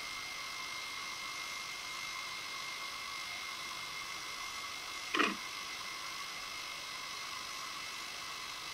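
Steady electronic hiss with a thin high whine, the underwater camera system's own recording noise. About five seconds in, one short sound sweeps downward in pitch.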